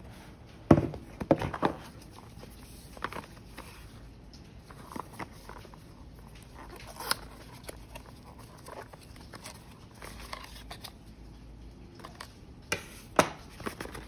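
Gloved hands handling packaging: a cluster of sharp knocks and taps about a second in, then light scrapes, taps and rustles as a slim white cardboard box is turned and opened, with two more sharp taps near the end.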